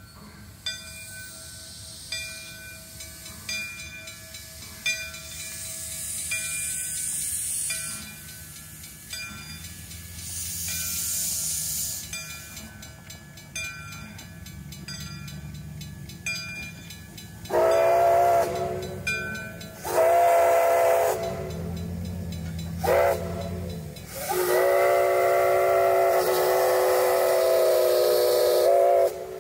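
Portage Flyer steam locomotive approaching a level crossing: a bell rings about every second and a half while steam hisses in bursts and the engine chuffs low. Then the steam whistle sounds the crossing signal, long, long, short, long, the last blast held about four seconds.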